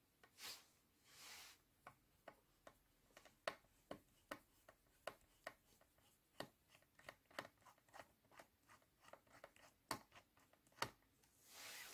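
Faint, irregular small clicks and ticks of a small screwdriver working the screws out of a laptop's hard-disk tray, with a couple of soft brushing swishes.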